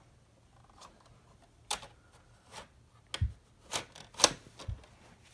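Hard plastic toy parts clicking and knocking as a Playmobil toy car is rolled out of the firehouse garage and the garage door is worked by hand. There are about five separate clicks, spaced out, with more of them in the second half.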